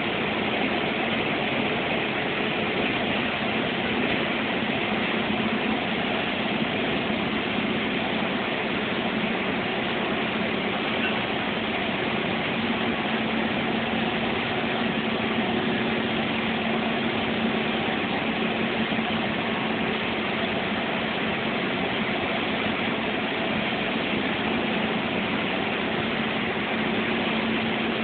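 Steady engine and road noise heard inside a heavy vehicle's cab as it drives along a highway. A steady hum grows stronger about halfway through.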